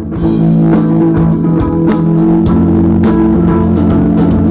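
Rock band playing live: electric guitars and bass over a drum kit with a steady beat, starting loudly right at the beginning.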